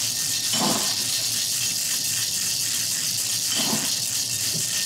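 Cocktail shaker with ice being shaken: a steady rushing hiss of ice and liquid churning inside the shaker. This is the wet shake with ice that follows the dry shake.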